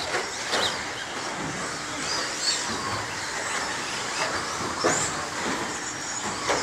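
1/10-scale radio-controlled race trucks running around the track: a steady hiss of motors and tyres, with a few brief high whines as trucks accelerate.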